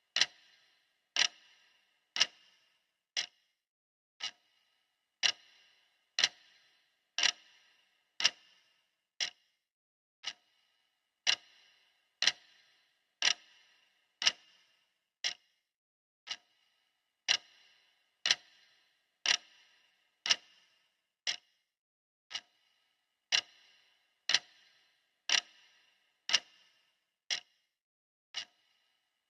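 Clock ticking about once a second. Each tick is a sharp click with a short ring, and some ticks are louder than others.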